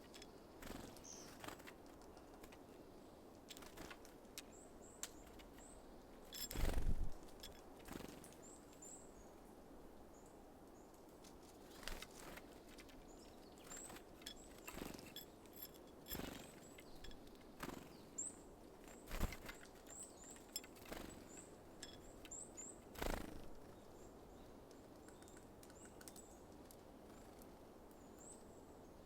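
Small songbirds giving short, high, thin calls again and again, with scattered sharp taps and knocks. The loudest knock comes about a quarter of the way in.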